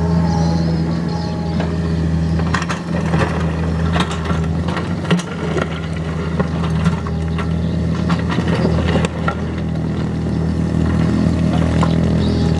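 Komatsu PC45 mini excavator's diesel engine running steadily under working load while its bucket digs into broken stone, with rocks clattering and knocking again and again.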